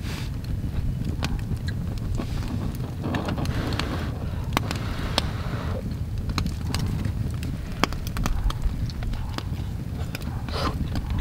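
Wood campfire crackling, with many scattered sharp pops over a steady low rumble.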